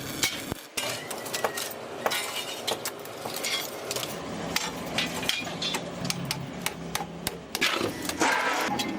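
Metal being hammered and handled in a fabrication workshop: irregular sharp knocks and clinks.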